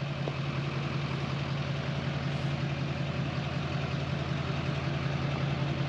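Pickup truck engine idling steadily, a low even hum with a fast regular pulse.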